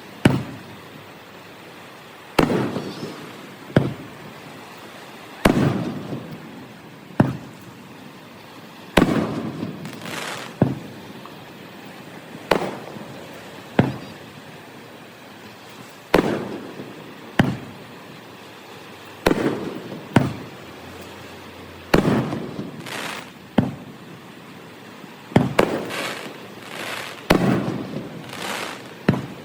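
Aerial fireworks bursting overhead: sharp bangs at irregular intervals of about one to two seconds, each trailing off in an echoing rumble, with a quick cluster of them near the end.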